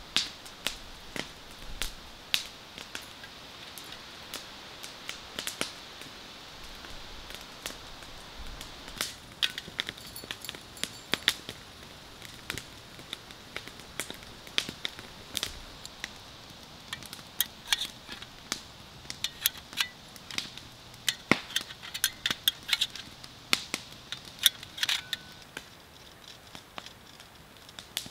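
Wood campfire crackling with sharp irregular pops, mixed with light metal clinks as a small folding grill is put together. The clicks come thicker in the second half.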